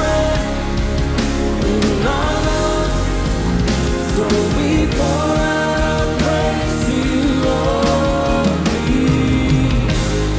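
Live worship band playing a slow rock-style worship song, a held, gliding melody line over a steady full band.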